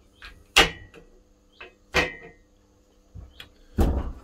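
Soft-faced mallet striking the rear crankshaft seal housing on a Mazda MX-5 Miata engine block to knock it loose: two sharp knocks with a short metallic ring, each with a lighter tap before it, then a duller clatter near the end.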